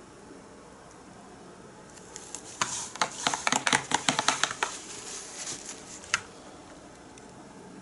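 Handling noise from a stretched canvas being moved and turned on the table: a flurry of clicks and rustles lasting about two seconds, then one more click.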